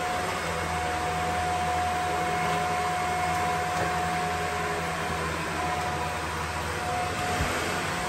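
Vacuum cleaner running steadily: a rushing of air with a steady whine over a low motor hum.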